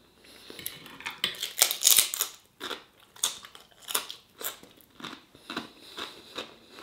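Chewing a mouthful of curry with crisp poppadom, a sharp crunch about twice a second.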